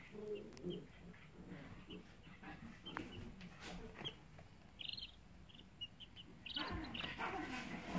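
Baby chicks peeping softly: scattered short high peeps, with a quick run of them about five seconds in. A louder, lower-pitched sound joins in near the end.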